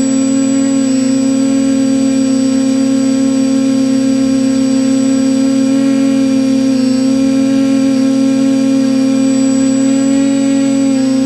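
TBS Discovery Pro quadcopter's brushless motors and propellers whining steadily in flight, heard from the onboard camera, with a thin high electronic whine above and small shifts in pitch now and then.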